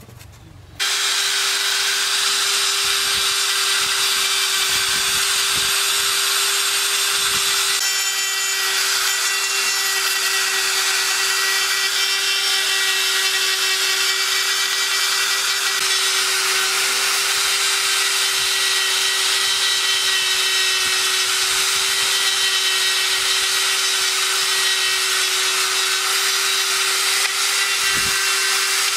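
Handheld rotary tool with a carbide burr running at a steady speed and grinding into wood while carving. It gives one steady whine over a gritty hiss, cutting in abruptly about a second in.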